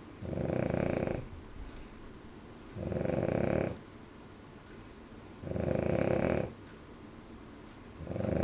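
French bulldog snoring in its sleep: loud, regular snores about a second long, coming every two and a half to three seconds, three in a row with a fourth starting near the end. Such snoring is typical of the breed's short, flat muzzle.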